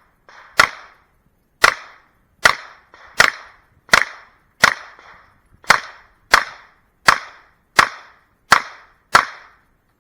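Handgun fired twelve times in quick succession, a shot roughly every two-thirds of a second: a shooter working through a timed IPSC stage.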